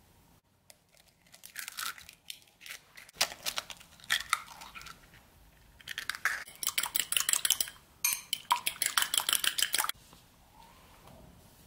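Raw eggs being beaten by hand in a ceramic bowl, the utensil clicking quickly and evenly against the bowl at about six strokes a second, in two runs during the second half. Before that, a few scattered knocks and clinks of kitchenware.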